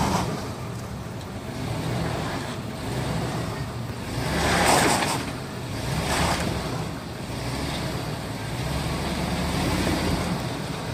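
Pickup truck engine running with a steady low hum. Two louder rushing swells come about four and a half and six seconds in.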